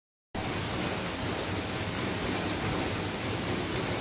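Steady, even hiss of workshop noise around a CNC panel bender, starting a moment in, with no distinct knocks or tones.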